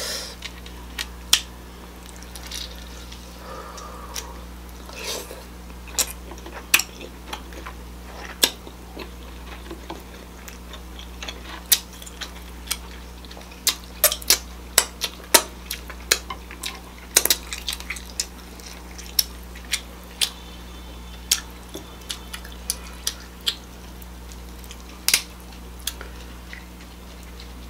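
Close-miked sounds of someone eating king crab legs: many short, sharp wet clicks and smacks from chewing, finger-licking and crab shell being pulled apart, thickest in the middle stretch, over a faint steady low hum.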